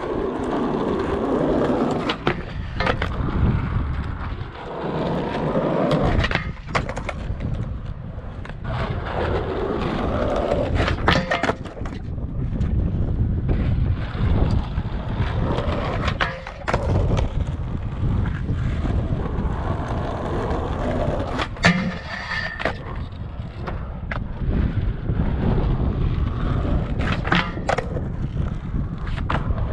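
Skateboard wheels rolling on concrete, a steady rumble broken by sharp clacks of the board striking the ground every few seconds. The rumble grows louder near the end as the skater rolls up close.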